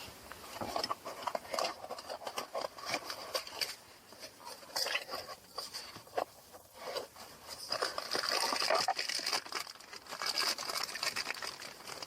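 Hands and tools working on small plastic and metal parts around an ignition switch: a busy run of small clicks, rattles and knocks, with a denser, higher scraping in the second half.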